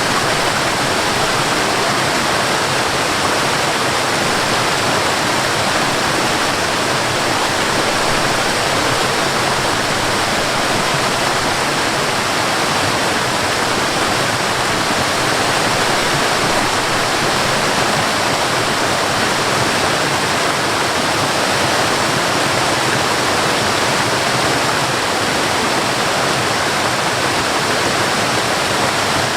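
Waterfall: water falling and rushing in a steady, unbroken roar, loud and even throughout.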